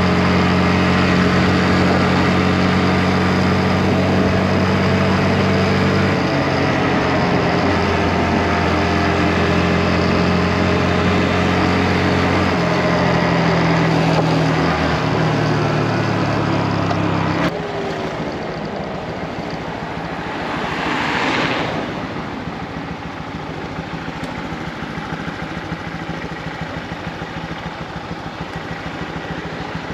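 Motorcycle engine running while riding, its note shifting in steps. About two-thirds of the way through it cuts abruptly to a quieter, rougher engine sound, with a brief swell of whooshing noise a few seconds later.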